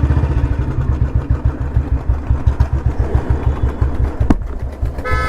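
Royal Enfield Bullet Electra 350's single-cylinder four-stroke engine running at low revs with its steady, even thump.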